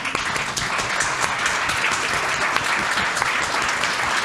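Audience applause in a large hall: many people clapping steadily, starting suddenly.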